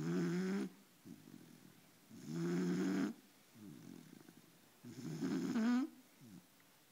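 Four-month-old puppy snoring in deep sleep: three loud, buzzing snores about two and a half seconds apart, with softer, rougher breaths between them.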